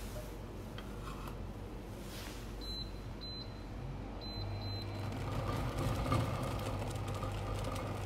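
Induction cooktop being switched on: four short high beeps from its touch controls, then, from about four and a half seconds in, a faint steady electrical hum as the hob starts heating.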